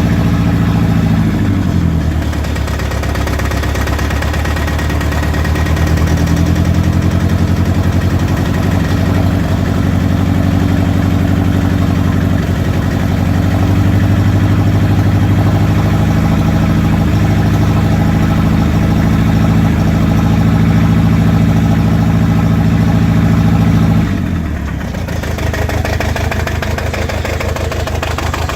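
Toyota 22R-series four-cylinder engine running rough with a misfire. Its speed drops about two seconds in, runs steadily for a while, then falls again near the end.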